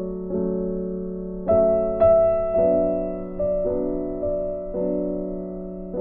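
Background music: slow, soft piano chords that ring on, with a new note or chord struck roughly every half second to a second.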